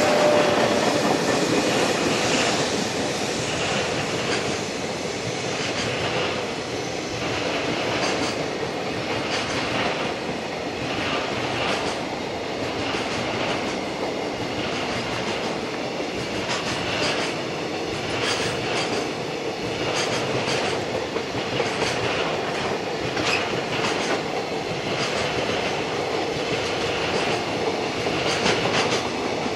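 Freight train of container flatcars rolling past: a steady rumble of wheels on rail with a repeated clickety-clack of wheel sets over rail joints. It is a little louder in the first couple of seconds.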